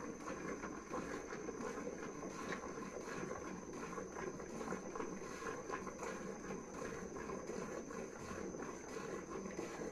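Milk squirting in steady streams into a pail as a cow is milked by hand.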